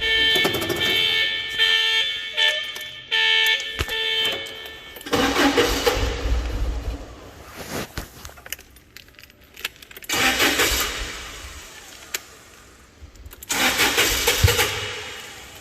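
A forklift engine being cranked on its starter in three separate attempts of about two seconds each, the hard starting of a freshly repaired engine that does not catch. A steady high warning tone sounds for the first four seconds.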